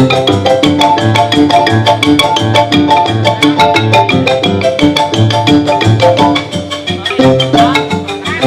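Fast xylophone music: a quick, even run of struck mallet notes over a repeating low bass line.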